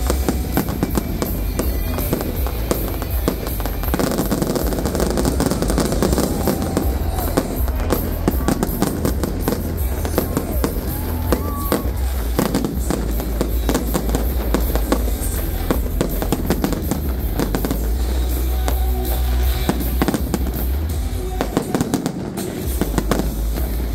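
Fireworks display: a dense, unbroken run of bangs going off in quick succession, with music playing underneath.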